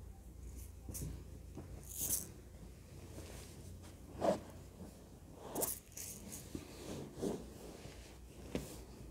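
Faint, scattered rustles and soft knocks of a person moving in and sitting down, clothing brushing and small items handled, with the clearest sounds a little past four seconds, near six and near nine seconds.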